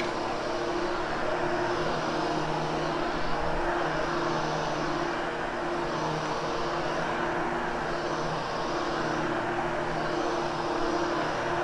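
Hoover HushTone upright vacuum running steadily on carpet: an even motor hum under a rushing airflow hiss that swells and eases every couple of seconds.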